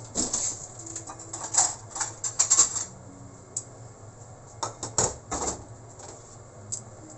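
Irregular sharp clicks and light clatter in two clusters, about the first three seconds and again around the five-second mark, over a steady low hum.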